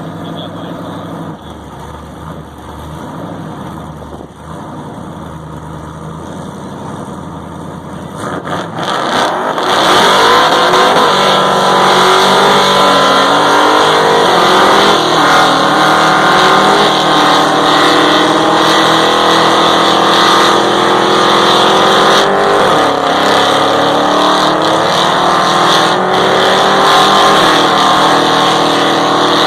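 Car engine running, then much louder from about ten seconds in, its pitch rising and falling again and again as it is revved.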